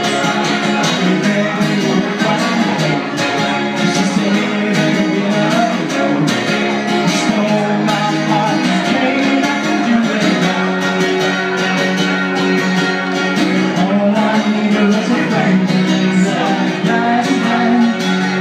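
Acoustic guitar strummed steadily at an even pace, with a man singing over it into a microphone.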